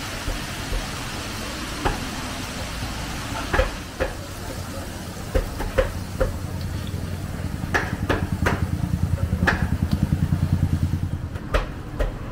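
Minced garlic deep-frying in a wok of hot oil, a steady sizzle, with sharp clicks and knocks of a metal wire skimmer against the wok as the fried garlic is scooped out. A low, fast throbbing comes in about eight seconds in and fades near the end.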